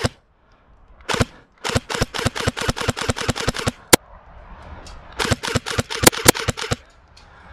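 Airsoft electric gun firing in bursts: a single shot about a second in, then a rapid burst of about ten shots a second lasting some two seconds, one sharp crack, and a shorter burst near the end.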